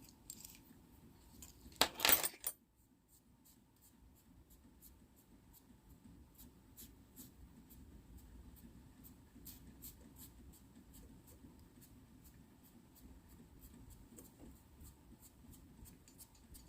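A brief clatter of a van key and fob being handled about two seconds in, then faint, regular ticking.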